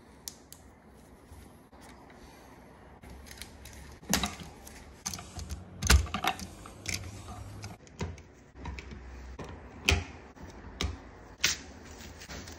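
Irregular sharp clicks and knocks from an electrical receptacle and its wiring being handled and pushed into a metal outlet box. The loudest knocks come about six seconds in and again near ten seconds.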